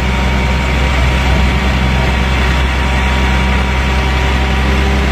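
A vehicle's engine running with a steady low drone.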